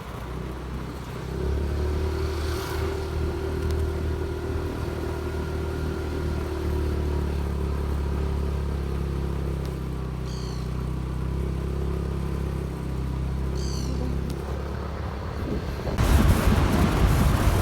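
Motor vehicle engine running steadily with a low hum, with two faint short high chirps in the middle. Near the end it cuts suddenly to loud wind rushing over the microphone.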